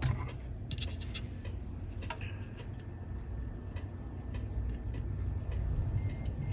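Small scattered clicks and taps of a multimeter probe on circuit-board pads over a steady low hum. Near the end a multimeter's continuity beeper starts a steady high beep with a short break, signalling a connection between the probes.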